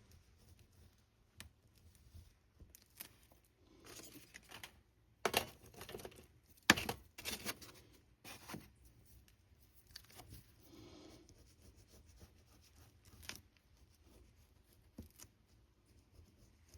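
Quiet paper handling and tearing in short bursts, with small clicks and taps in between; the loudest bursts come about five to seven seconds in.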